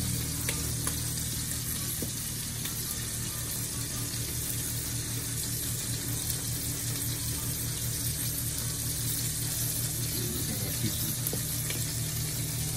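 Cheese sauce simmering in a large stainless steel pot as it is stirred with a wooden spoon: a steady bubbling hiss with faint pops, over a low steady hum.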